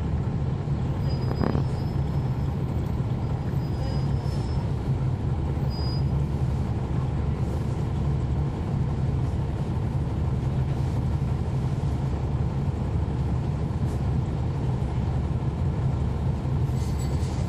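Steady low drone of a 2011 NABI 416.15 (40-SFW) transit bus's Cummins ISL9 diesel engine, heard from inside the passenger cabin, holding an even pitch with no revving.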